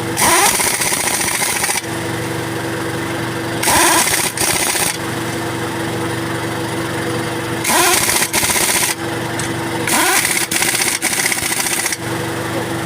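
Pneumatic impact wrench run in four bursts of about a second each, spinning up at the start of each burst, most likely tightening the wheel's lug nuts. Under it a steady engine-like hum runs on throughout.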